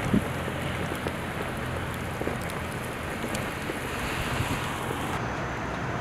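Strong winter wind blowing snow: a steady rushing hiss with a low rumble underneath. The high part of the hiss drops away about five seconds in.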